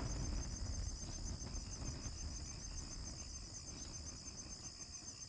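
Crickets and other insects chirping steadily over faint low background noise.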